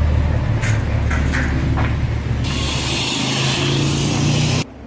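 Cadillac ATS-V's twin-turbo V6 running at low revs as the car pulls away, its note rising over the last two seconds with a loud hiss over it. The sound cuts off suddenly near the end.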